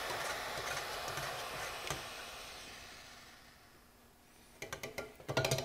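Red-hot saw-blade steel quenched in canola oil: a steady hissing sizzle that dies away as the blade cools. Then, near the end, a quick run of sharp clicks and clatter.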